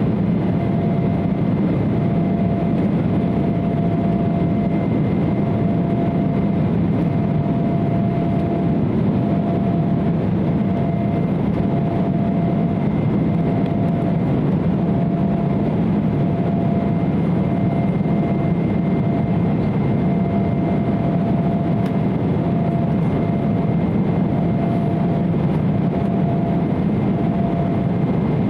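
Steady cabin drone of an Embraer 170 in flight: its two GE CF34-8E turbofans and rushing air make a deep, even hum with a faint steady whine above it.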